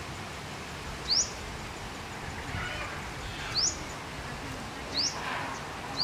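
A bird repeating a short, high, upward-sweeping chirp every second or two, over a steady outdoor background hiss.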